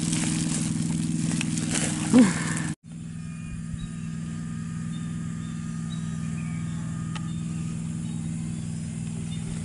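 Steady low hum of an engine running, cut off for an instant about three seconds in, with a single click near the end.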